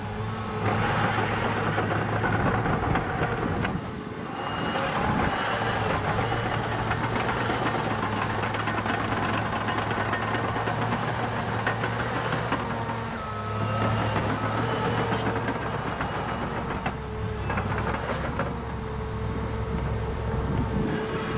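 Caterpillar 963C track loader's diesel engine running under load, its pitch and loudness rising and falling as the machine drives on its steel tracks and works the loaded bucket. Light clicks and clanks come from the tracks and linkage.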